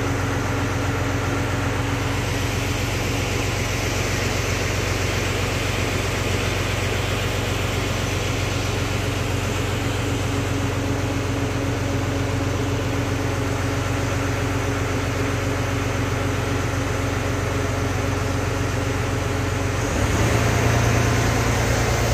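River ferry's engine running with a steady low drone. About twenty seconds in the note shifts and gets a little louder.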